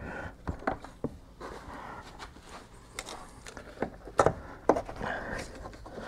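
Irregular clicks, knocks and rustling as a seat belt retractor mechanism is worked by hand into its mount behind the seat, with plastic trim and belt webbing being handled.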